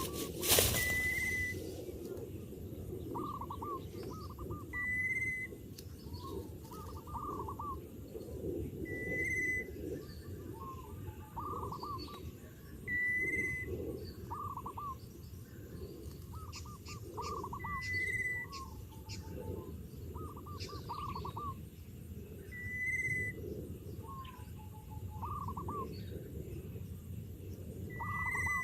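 Birds calling outdoors: one bird gives a short, clear high note about every four seconds, while other trilled chirps come between, over a steady low rumble.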